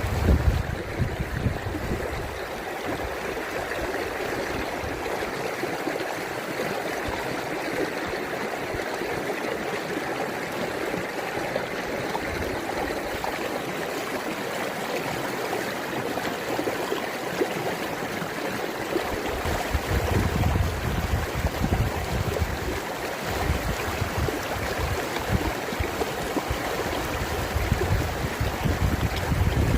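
River water flowing in a steady, continuous rush, with irregular low rumbles at the start and again about two-thirds through.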